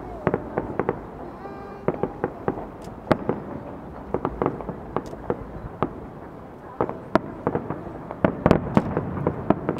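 Aerial fireworks shells bursting in a display: a stream of sharp bangs and crackles, thickening into a dense volley about eight seconds in.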